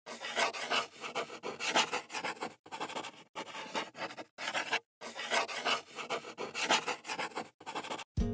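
Marker drawing on a white surface: quick scratchy strokes in irregular bursts, with short pauses between them.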